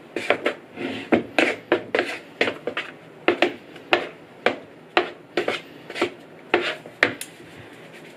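Wooden spatula knocking and scraping against a wooden bowl while thick whipped-topping mixture is stirred, about two or three clacks a second, stopping near the end.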